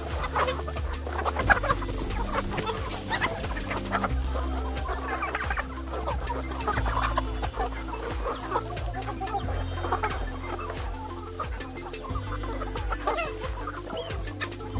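A crowded flock of chickens clucking continuously, over background music with a bass line that changes note every second or two.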